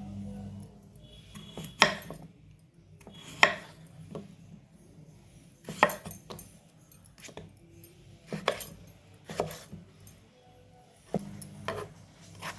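Kitchen utensils knocking and clinking against dishes and pans while food is prepared: a string of sharp, ringing knocks at irregular intervals, a second or two apart.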